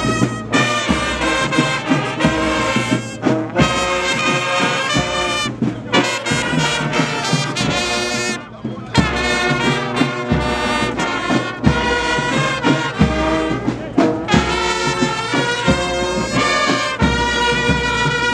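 Brass band playing a march, trumpets and trombones over a steady drum beat, with a short break in the music about eight seconds in.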